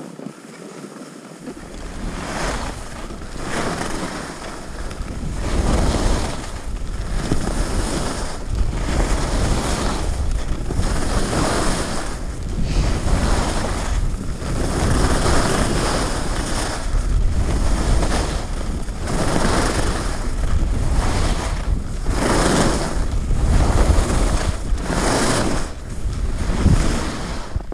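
Skis scraping over hard, crunchy snow in a regular series of turns, about one a second, under a steady low rumble of wind on the microphone. The sound builds about a second and a half in as the skier gets moving.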